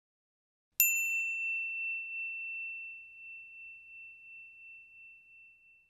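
A single bright bell ding about a second in, ringing on at one high pitch and fading slowly away: a notification-bell sound effect from a like-and-subscribe animation.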